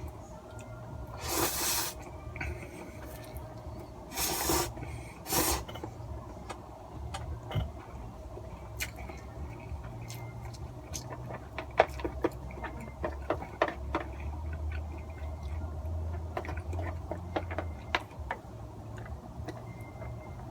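A person eating instant cup yakisoba: three short noisy slurps or breaths in the first few seconds, then chewing with many small clicks and taps, over a steady low hum.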